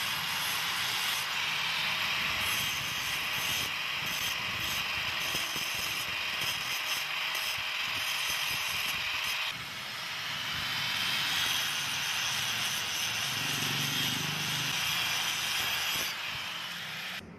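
Angle grinder with a thin cutting disc cutting through a steel motorcycle brake disc: a steady, high grinding noise that dips briefly and changes tone near the middle.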